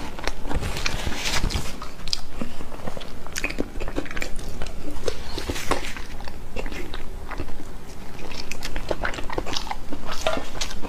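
A person chewing and biting food close to a clip-on microphone, with irregular wet mouth clicks throughout.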